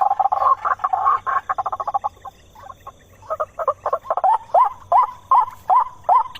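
White-breasted waterhen calling: a fast run of harsh croaking notes that breaks off about two seconds in, then after a short pause a steady series of hooked 'kwak' notes, about two and a half a second.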